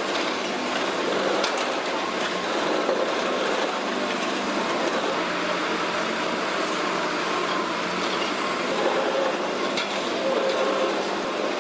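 Hitachi Zaxis 225 USR excavator running steadily under load as its hydraulic crusher works on a reinforced concrete block, with a few faint sharp cracks.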